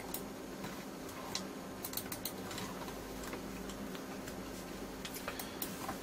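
Faint, irregular clicking of a computer mouse, a dozen or so small clicks spread unevenly, while the microscope software is restarted, over a low steady hum.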